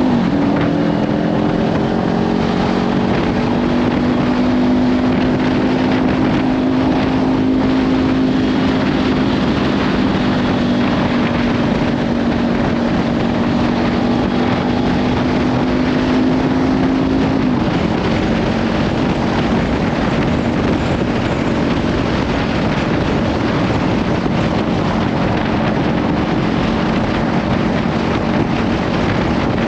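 Kawasaki Ninja 500 parallel-twin engine with a Leovince slip-on exhaust running at a steady cruising pitch, heavily covered by wind buffeting on the microphone. The engine note dips a little about two-thirds of the way through.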